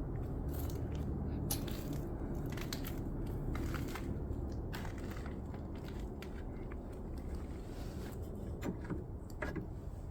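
Footsteps crunching irregularly over gritty debris, with scattered short crunches and scrapes over a low steady rumble.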